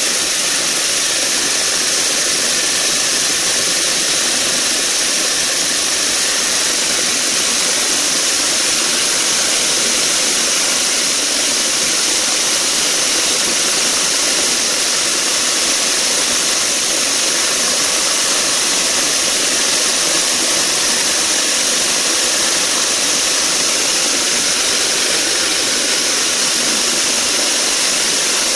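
Vibratory tumbler for polishing gemstones running, its bowl of abrasive pellets churning with a steady, even hiss.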